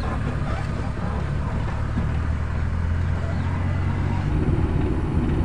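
Maruti Omni van's small three-cylinder petrol engine and road noise heard from inside the cabin while driving, a steady low hum that turns into a rougher rumble about four seconds in.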